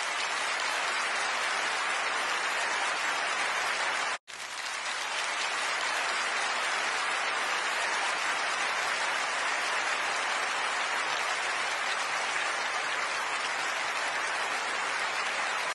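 Large audience applauding, a steady dense clatter of many hands. It cuts out for an instant about four seconds in and then resumes at the same strength.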